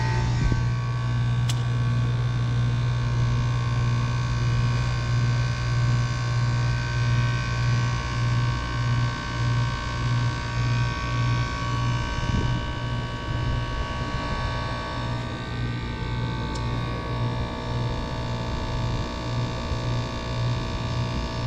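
Old Rheem R-22 heat pump's outdoor unit running: a loud, steady low electrical hum with steady higher tones over it. The hum starts to waver in strength from about halfway through.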